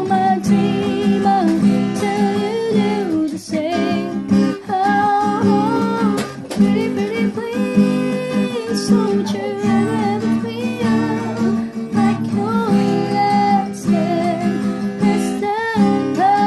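A woman singing while playing an acoustic guitar, her held notes wavering with vibrato.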